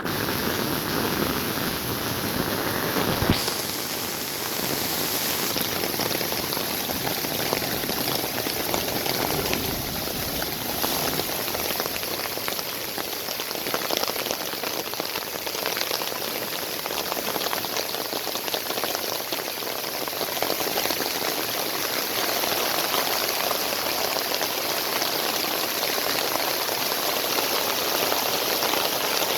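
Steady rain falling, a dense even hiss of drops, with a single sharp click a few seconds in.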